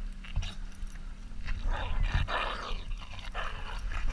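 A dog close to the microphone, breathing hard in rough bursts as it runs up carrying a stick, with a couple of low thumps.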